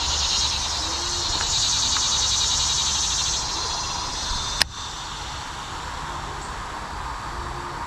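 A dense, pulsing chorus of insects in the summer heat, loudest for the first half. A single sharp click comes a little over halfway, after which the chorus is somewhat quieter.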